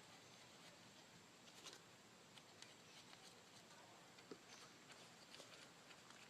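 Near silence, with a few faint, scattered light clicks and taps of small engine parts being handled.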